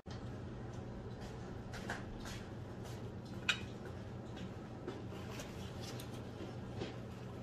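A few faint clicks and clinks of forks against a plate and light handling of food during a meal, the sharpest about three and a half seconds in, over a steady low hum.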